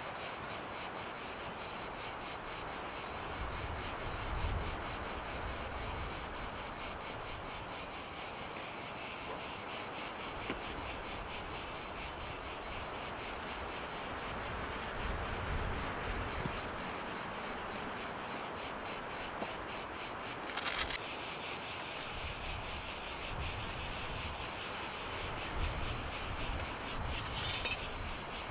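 Dense, steady high buzzing of an insect chorus with a fast pulsing texture, louder from about two-thirds of the way through. Low rumbles come and go underneath, and there is a sharp click about three-quarters of the way in.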